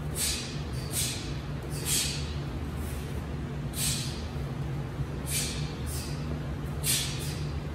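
Two people performing a taekwondo form at testing speed: short, sharp hissing bursts, roughly one a second, as each block and strike is thrown, over a steady low hum.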